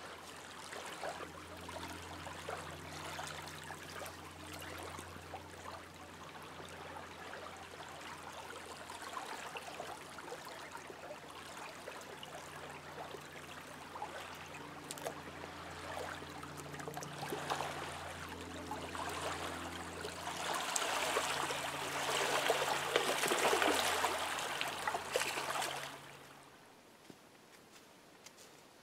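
Small waves lapping and splashing on a lake shore, swelling louder for a few seconds before cutting off near the end, with a faint low steady hum underneath.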